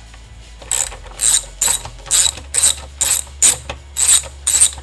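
Socket ratchet wrench with an 11/32 socket clicking in repeated short strokes, about two a second, as it backs out a screw.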